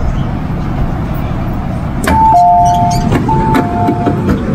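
MTR M-Train door-closing warning chime: a high tone stepping down to a lower one, sounded twice in a row starting about two seconds in, over the low rumble of the train.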